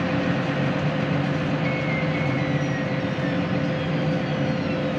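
Steady drone of a farm machine's engine running at constant speed, with a steady hum through it.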